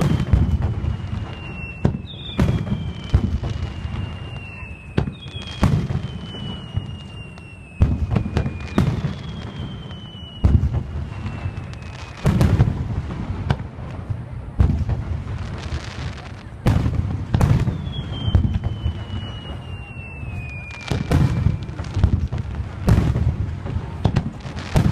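Aerial fireworks display: shells bursting in a run of sharp booms every second or two, with a rolling low rumble between them. Several whistles slide down in pitch over a second or so each, some overlapping the bursts.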